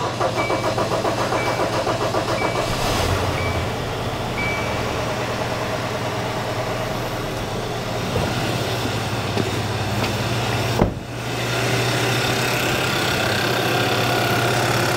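A 2015 Kia Sorento's new 2.4-litre GDI four-cylinder engine cranking on its first start after replacement, catching after about three seconds and then running smoothly at a steady idle. A sharp click comes near eleven seconds in.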